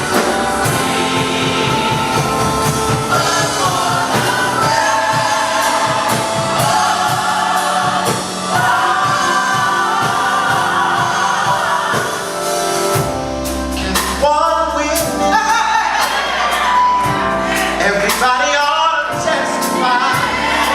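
Gospel choir singing with band accompaniment and drums, with a single voice bending and sliding over the music from about 13 seconds in.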